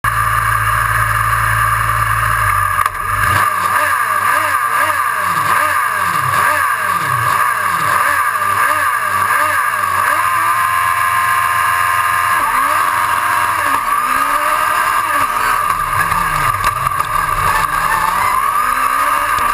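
Autocross race car's engine heard from a camera on its bonnet. It runs steadily on the start line, then from about three seconds in is revved up and down repeatedly and held at steady high revs. A little after halfway it launches and accelerates away, the pitch climbing and dropping back with each gear change.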